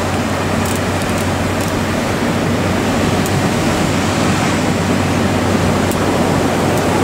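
Steady rush of breaking ocean swell and surf in a harbour entrance channel, with a low steady hum underneath.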